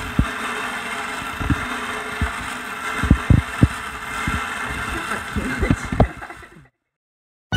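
Steady background noise with irregular low thumps scattered through it; it cuts off abruptly about a second before the end.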